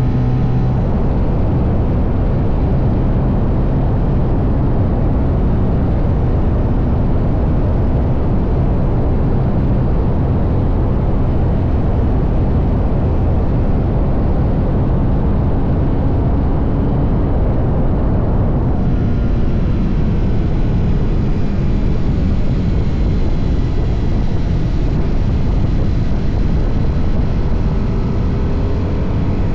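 TVS Apache RR310 motorcycle riding at speed: steady heavy wind and road rush over the microphone, with the bike's 312 cc single-cylinder engine running underneath on its stock exhaust.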